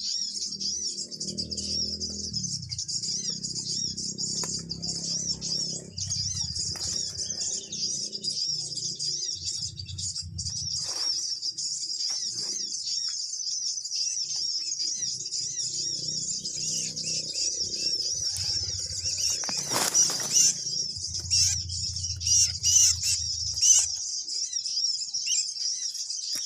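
Small birds chirping rapidly and without a break in a high-pitched, repeating pattern. Under it come patches of low rustling, and there is one sharp knock about twenty seconds in.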